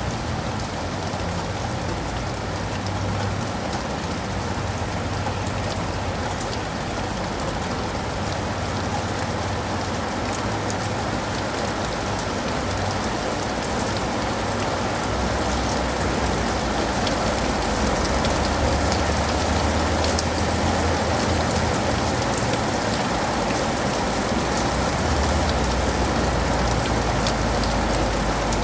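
Steady rain falling, with many fine drops ticking. A low rumble runs underneath and grows stronger about halfway through.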